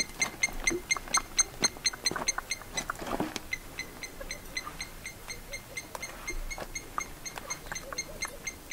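An even, rapid series of short high chirps, about three or four a second, from a calling animal; they grow fainter after the first few seconds. About three seconds in there is a single short breathy rush.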